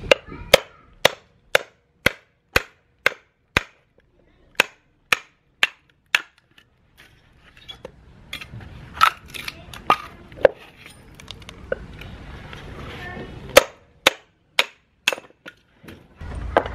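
A mallet knocking on the back of a hatchet, driving it through a short log to split kindling: a run of about a dozen sharp knocks, two a second, then softer clicks as split wood is handled, and a second run of about five knocks near the end.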